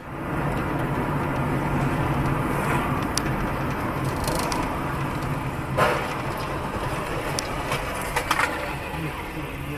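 Steady road and engine noise inside a car's cabin as it slows down, picked up by a dash camera. A single sudden bang comes about six seconds in, followed by a few short clicks near the end.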